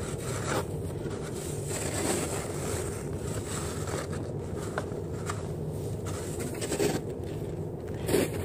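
Wind buffeting the microphone in a steady rumble, with a snow shovel scraping across packed snow a few times, the loudest scrape near the end.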